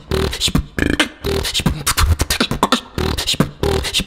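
Beatboxing into a studio microphone: a steady rhythm of vocal kick-drum thumps, sharp snare-like clicks and hissing hi-hat sounds, with a few short pitched vocal tones woven in.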